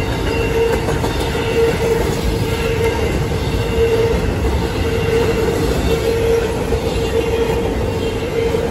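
CSX intermodal freight train passing at speed: a steady rumble of railcar wheels running over the rails. A wavering high tone comes and goes over it.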